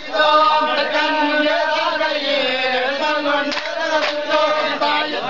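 Men's voices chanting a traditional Ivorkali song together in long held lines, with a few hand claps.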